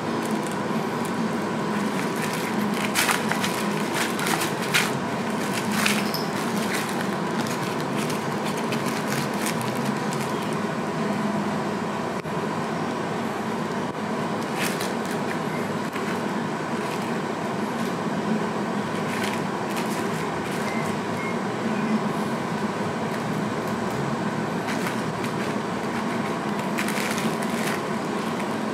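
Steady room noise, a low hum and hiss with a faint high tone running through it, broken by a few light clicks about three to six seconds in and again near the end.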